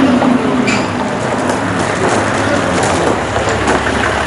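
Toyota Land Cruiser pickup truck running, a loud steady engine and road rumble, with a few short clicks about a second in.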